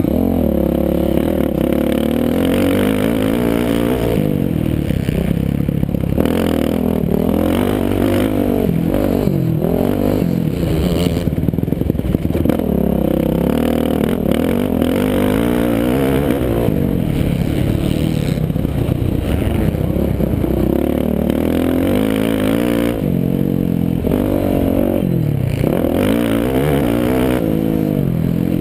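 Motocross bike engine revving up and down over and over as it is raced around a dirt track, heard on board with steady wind noise over it.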